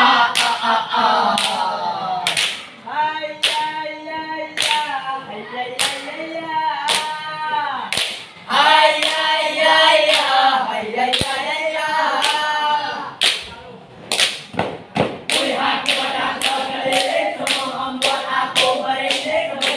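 A group of young male voices chanting and singing in unison, punctuated by sharp, rhythmic step-dance body percussion of claps and stamps. Near the end the strikes come faster, about two a second.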